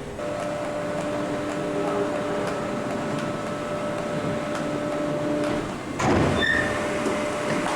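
CRAM-A-LOT HX-72-W baler running, with a steady machine whine from its drive. About six seconds in comes a loud thump with a few short high squeaks, and then the whine resumes.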